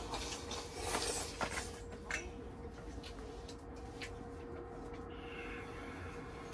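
People eating noodle soup from metal bowls with chopsticks: a few short clinks and slurps in the first two seconds, then only a faint steady hum.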